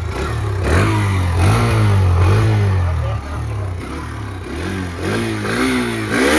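Hero Xtreme 125 motorcycle engine revved again and again through its exhaust. The pitch rises and falls with each blip of the throttle over a steady running note.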